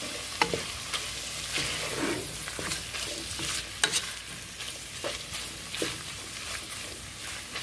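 Ground chicken and onions sizzling in a frying pan while a spatula stirs them, scraping through the mixture, with a few sharp taps of the spatula against the pan.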